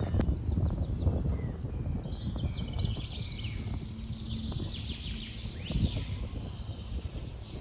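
Birds singing outdoors, a busy run of quick high chirps and trills that starts about two seconds in, over a low rumbling background.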